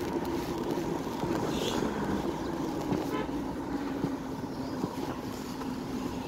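Steady engine drone and tyre noise of a moving road vehicle on a wet road, heard from inside the vehicle, with a short horn toot about three seconds in.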